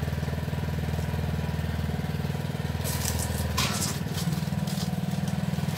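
Honda rear roller lawn mower's petrol engine running steadily on a test run after repair. About three seconds in there is a brief scraping clatter and the engine note shifts slightly as the mower starts to roll forward.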